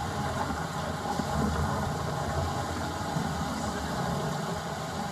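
A steady low engine-like rumble with a hiss over it.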